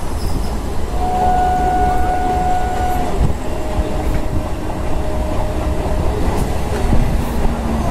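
EMU local train running on the rails, heard from inside the coach by an open window: a steady heavy rumble with some clickety-clack. About a second in, a steady tone sounds for about two seconds, followed by a slightly lower tone for about three seconds.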